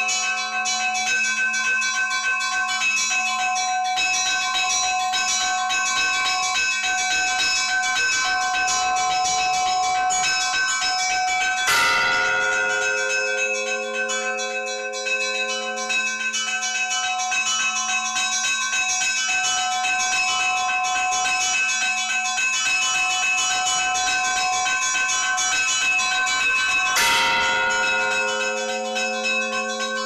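Church bells ringing a continuous morning peal, with smaller bells chiming throughout and a heavier bell struck twice, about twelve seconds in and again near the end.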